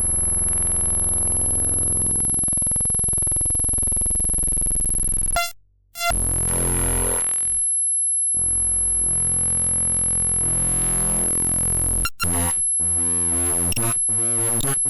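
Computer icon files played back as raw audio data: a harsh, buzzy drone of many stacked tones that sweep and shift, over a constant high whine. It cuts out for about half a second around five and a half seconds in, and after about twelve seconds breaks into a fast, choppy stutter.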